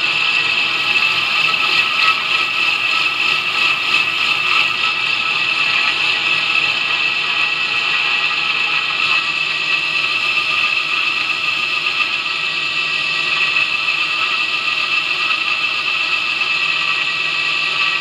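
A 2x72 belt grinder running a fine Scotch-Brite surface conditioning belt, with a steady high whine, while the flats of a steel knife blade are ground against the belt at the flat platen.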